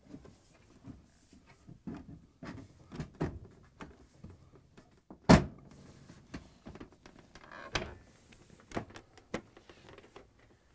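Stainless steel outer door panel being fitted onto a Bosch dishwasher door: scattered knocks and taps of metal panel against the door, with one loud thump about five seconds in.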